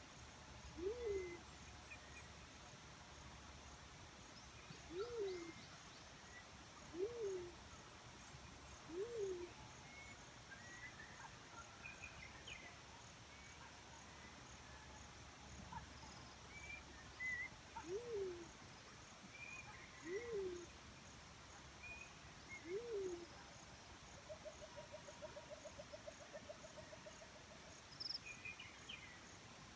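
Black-chinned fruit dove giving low hooting coos, each one rising then falling in pitch. There are about eight, spaced about two seconds apart, with a long pause in the middle. Other birds chirp faintly, and an insect ticks steadily and fast in the background.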